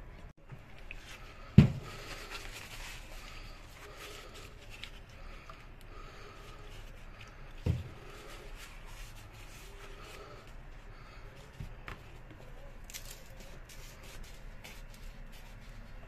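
Quiet handling of PVC drain pipe and fittings, with paper rubbing a pipe end clean before gluing. Two dull thumps stand out, about one and a half seconds in and again near eight seconds in, with a few small clicks later.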